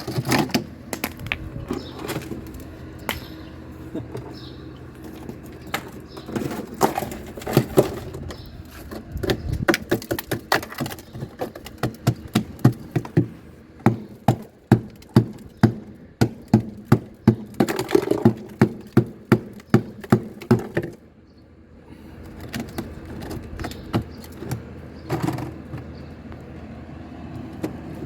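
Sharp knocks and cracks of thick, hard ice being chipped off a refrigerator's evaporator, irregular at first, then a run of about two strikes a second in the middle, over a steady hum.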